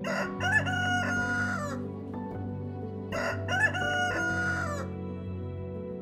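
A rooster crowing twice, each crow about a second and a half long, rising, holding and then falling away, over soft background music.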